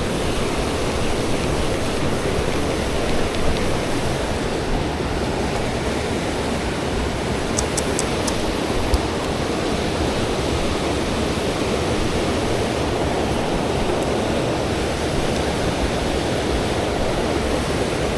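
Steady rush of flowing river water, with a few faint sharp clicks about eight seconds in.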